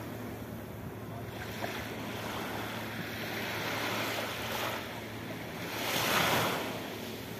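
Sea waves washing onto a sandy beach, a steady wash of surf that swells twice, loudest about six seconds in. Wind on the microphone adds a low rumble.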